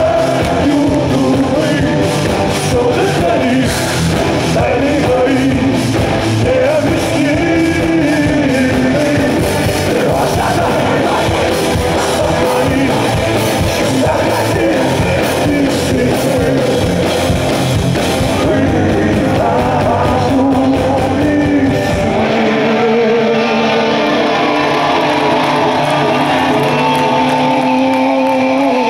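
A live punk rock band plays loudly through the PA, recorded from within the audience: electric guitars, bass and drums under a male lead singer. About twenty seconds in, the drums and bass stop, leaving held guitar chords and singing.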